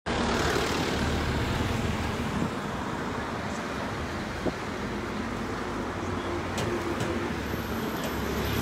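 Steady road-traffic noise with a low rumble, and a faint short knock about halfway through.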